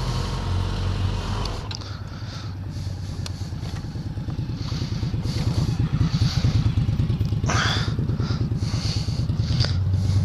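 Motorcycle engine running at low speed, its firing pulses steady and growing louder a few seconds in as the bike pulls through a parking lot.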